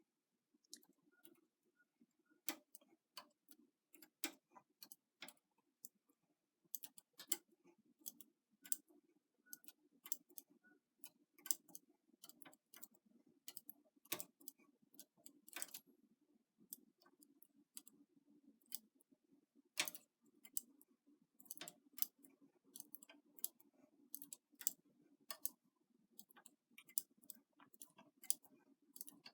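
Light, irregular clicking of a latch tool against knitting machine needles and their latches as stitches are cast on by hand, over a faint low hum.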